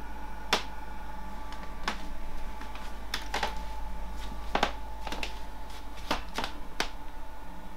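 About nine light clicks and taps, spread irregularly, over a steady hum.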